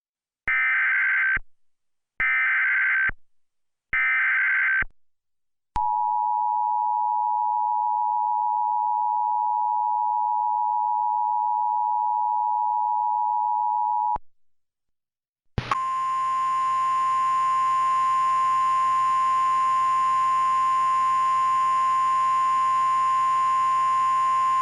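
Emergency Alert System SAME header: three short bursts of warbling digital data tones, each about a second long. Then the EAS two-tone attention signal holds steady for about eight seconds. After a brief pause a single steady alert tone starts with hiss behind it and runs on.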